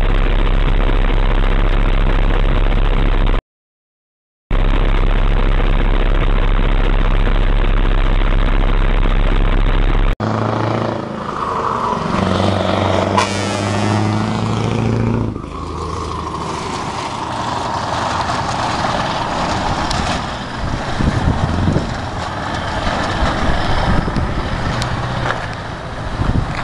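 A steady, flat noise with a low hum, broken by about a second of silence. Then a Scania truck's diesel engine runs close by and pulls away with its livestock trailer, giving way to uneven engine and road noise as the rig drives off and turns.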